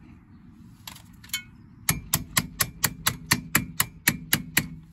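About a dozen sharp, evenly spaced metallic taps, roughly four a second, as a brake-line retaining clip is worked and tapped home onto its bracket on the steering knuckle.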